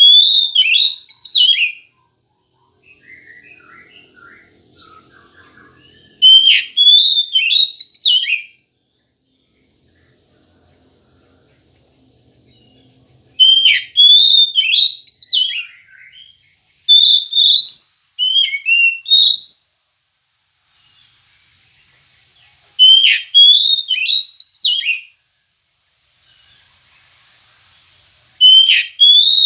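Oriental magpie-robin (kacer) singing: six short phrases of loud, sweeping whistled notes, each a second or two long, with faint twittering in the gaps between them.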